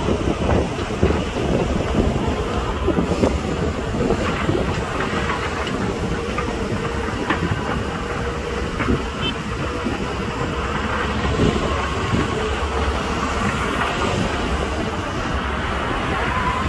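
Crawler bulldozer at work: its diesel engine runs steadily while the steel tracks clank and rattle, with a steady whine underneath.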